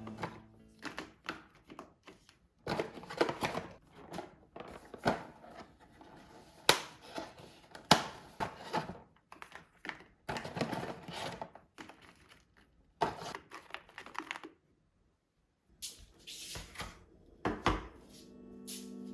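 A string of short knocks, taps and rustles from objects being handled and set down, with brief pauses between them. Music comes back in near the end.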